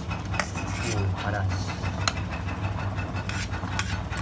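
A metal utensil stirring instant noodles in a stainless steel electric kettle of boiling water, knocking against the metal sides in a few sharp clicks, over the steady low rumble of the water boiling.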